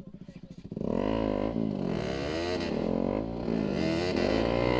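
Sports motorcycle engines, a Yamaha R15 among them, revving up and down again and again as the riders try to drive the bikes out of deep mud. A steady engine idle is heard first, then the revving comes in loudly about a second in.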